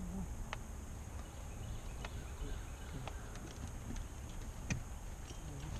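Steady low rumble of open-air background with a few light, scattered clicks, about four over several seconds, as fishing tackle is handled at the side of the boat.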